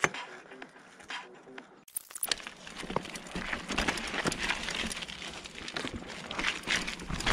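Mountain bike riding down a dry, rocky dirt trail: tyres crunching and crackling over loose dirt and stones, with dense irregular rattling clicks from the bike. It starts abruptly about two seconds in.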